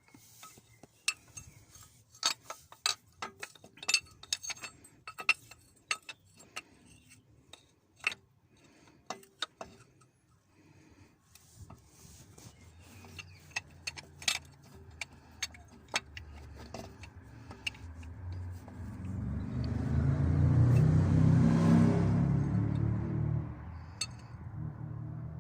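Metal spanner clinking against the engine while the tight oil pressure switch is worked on, with a string of sharp clinks through the first half. Then a passing vehicle's engine builds up, is loudest in the second half, and fades away near the end.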